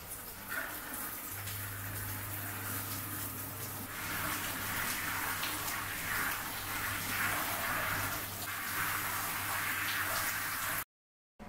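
Shower water spraying and splashing onto a person washing in a small tiled shower, with a steady low hum underneath from about a second in. The sound cuts off suddenly shortly before the end.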